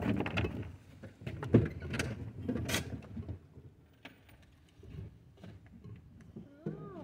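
Irregular clicks, knocks and clatter of hands handling gear and the phone on a boat deck, busiest in the first three seconds with two sharp clicks, then quieter. A brief warbling pitched sound near the end.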